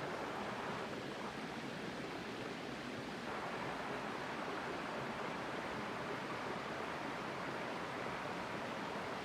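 Small waterfall, its water falling and splashing steadily.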